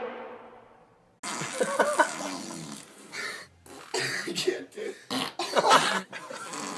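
A person coughing in a series of short bursts, after a sound that fades out over the first second.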